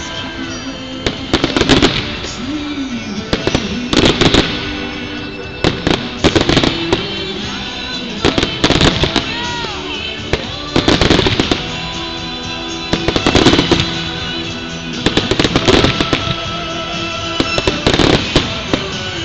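Aerial fireworks bursting in clusters of sharp bangs and crackles about every two seconds, over music playing throughout.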